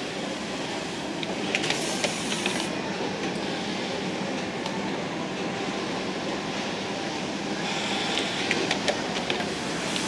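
Steady mechanical din of a garment factory floor full of industrial sewing machines. A nearby Juki single-needle lockstitch machine runs in two short bursts of stitching with clicks, about a second and a half in and again about eight seconds in.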